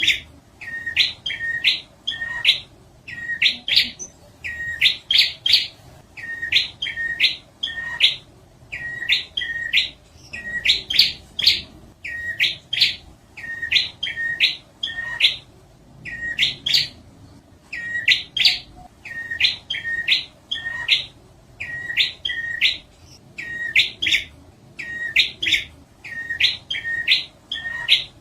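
Prinia (prenjak) song: short bursts of two or three quick, high, sharp notes repeated about every second and a half without a break. This is the lively, insistent singing used as a lure call to draw wild prinias.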